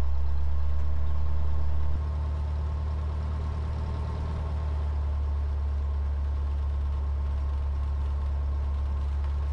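Cessna 152's four-cylinder Lycoming engine and propeller running at low power during the rollout after landing, heard from inside the cockpit as a steady low drone. It drops a little in level about two seconds in.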